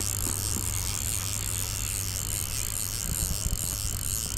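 Steady chirring of night insects, pulsing about three times a second, over a low steady hum, with a few soft knocks about three seconds in.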